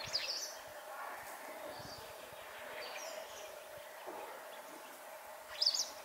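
White wagtail giving a few short, high chirping calls, the loudest near the end, over a steady low background hum.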